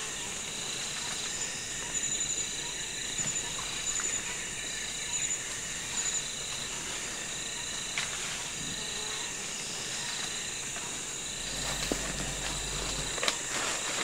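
Tropical rainforest insects trilling steadily at a high pitch, with short chirps repeated through the first half. Near the end come crackles and rustles of dry leaves as a gorilla moves through the leaf litter.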